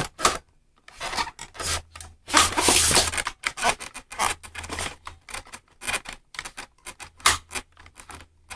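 Handling noise from an airsoft rifle being unboxed: irregular rubbing and scraping strokes, the longest and loudest about two and a half seconds in.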